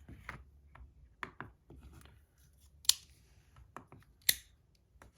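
Scattered sharp clicks and taps from a small hand-held fidget being handled and set down on a scale. There are two louder clacks, about three and four seconds in.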